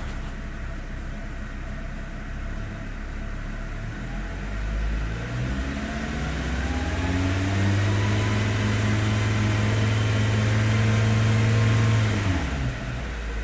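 Volkswagen Beetle 2.5L inline five-cylinder engine running: idling, then revved up over a few seconds, held at a steady higher speed for about four seconds, and dropped back to idle near the end.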